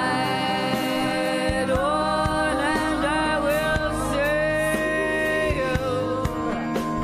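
Live folk band playing a slow song between sung lines. A melody line glides up into long held notes with vibrato over a steady backing of strings and bass.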